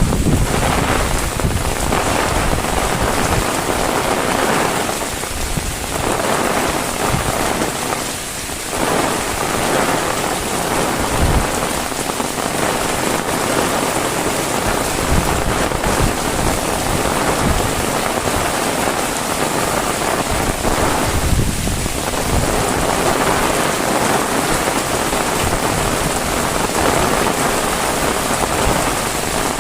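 Heavy rain pouring down as a steady, dense hiss, dipping briefly a few times.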